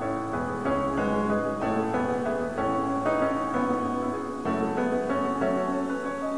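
Piano playing a slow passage of sustained chords that change about every half second.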